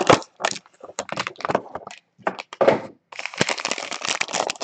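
Trading card packaging being handled and opened: a run of sharp clicks and cracks, then steady crinkling of a plastic wrapper from about three seconds in.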